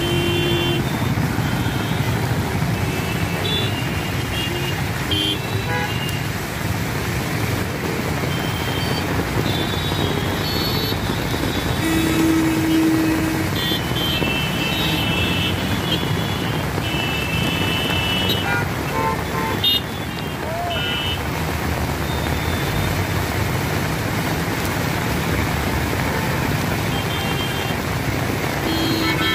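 Heavy rain hissing over steady road traffic, with cars and two-wheelers passing and many short vehicle horn toots, including a longer, lower horn blast about twelve seconds in.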